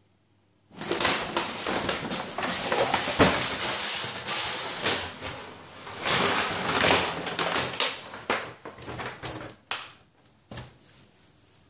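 Paper shopping bag rustling and crackling as a cat pushes into it and drags it about. It starts suddenly about a second in, loud and dense, then thins to scattered crackles near the end.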